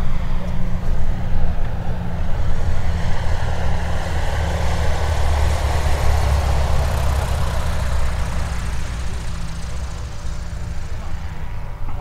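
A light propeller airplane's engine running as it goes past. The sound swells to a peak about six seconds in and fades away near the end.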